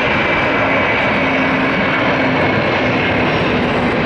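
Airbus A330's twin jet engines at takeoff thrust as the airliner climbs out just after liftoff: a loud, steady engine noise with a faint high whine and a low hum running through it.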